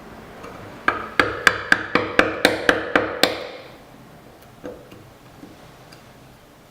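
About ten quick, sharp knocks on wood, about four a second, each ringing briefly, then one fainter knock a little later.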